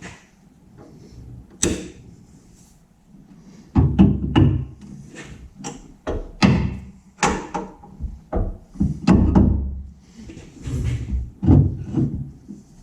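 Irregular metal knocks, clanks and heavy thunks of hand tools and suspension hardware being worked while a Panhard bar is fitted to a rear axle, quiet at first and louder from about four seconds in.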